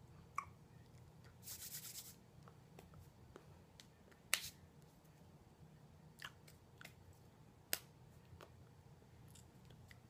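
Near-silent room tone with a low hum, broken by a few sharp clicks and taps from hands meeting and brushing together during sign language, the loudest about four and a half and seven and three-quarter seconds in, and a short hiss about a second and a half in.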